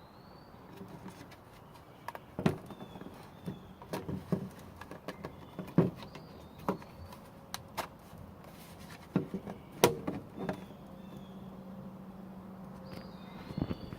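Handling noise from an electric mosquito trap being opened and looked over: scattered, irregular clicks and knocks. Birds chirp faintly now and then, and a low steady hum starts about ten and a half seconds in.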